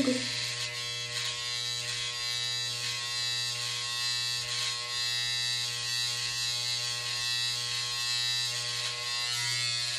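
Electric hair trimmer buzzing steadily as it edges the hairline at the temple and sideburn.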